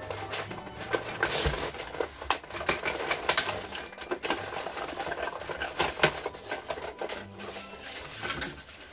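Hand-cranked Cuttlebug die-cutting and embossing machine being turned, its rollers drawing a cutting-plate and die sandwich through with a dense, irregular run of clicks and crackles as a flower shape is cut from sanding cloth.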